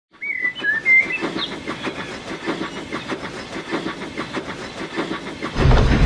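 Birds chirp briefly, then a steam train runs with an even rhythmic beat of about three strokes a second. Near the end a much louder low rumble comes in as the train draws close.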